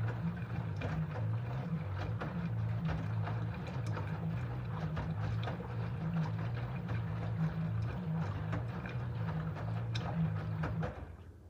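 LG F13D9NC front-loading washing machine in its main wash: the drum motor hums steadily as the drum turns, with wet laundry sloshing and tumbling in the water. Near the end the drum stops and the sound falls away.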